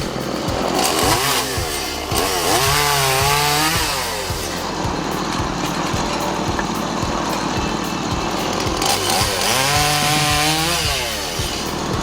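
Chainsaw running and cutting through wood, its pitch rising and falling twice as it works through the cuts.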